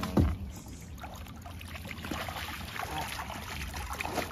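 A hooked redfish splashing and thrashing at the surface as it is scooped into a landing net beside a skiff, with water slapping and trickling. A single low thump sounds just after the start.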